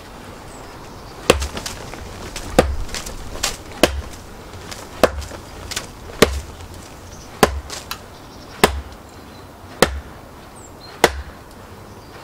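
A mallet striking a blade set into a log of firewood to split it: about nine heavy blows at a steady pace of roughly one every second and a bit, each a sharp crack with a dull thud under it.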